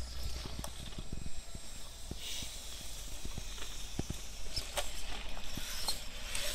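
Axial XR10 RC rock crawler working its way over rock: scattered light clicks and knocks from its tyres and chassis against the stone, with brief bursts of hiss.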